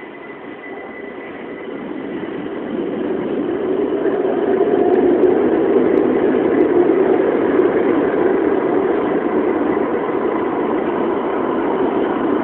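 Buenos Aires Subte Line C metro train pulling out of the station. Its rumble builds over the first three or four seconds as it gathers speed, then stays loud and steady.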